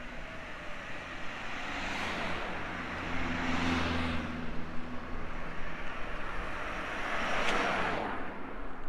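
Motor vehicles passing on a road: a low engine hum with tyre and road noise that swells as one goes by about two to four seconds in, then another peaks near the end.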